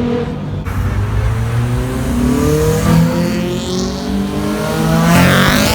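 Car engine accelerating hard, its pitch climbing steadily, then the car passes close by near the end.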